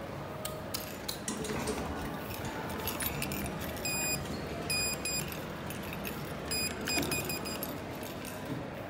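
Schindler lift's electronic beeper sounding a run of short, high beeps in two clusters, a couple of seconds apart, over a steady background hum.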